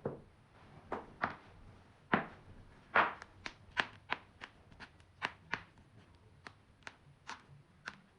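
A run of about twenty sharp cracks from joints being cracked, coming unevenly a few a second, the loudest around two and three seconds in and softer toward the end.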